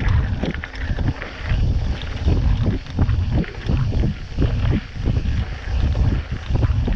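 Mountain bike rolling over a stony dirt trail: wind buffets the microphone with a steady rumble, and frequent knocks and rattles come as the tyres hit stones.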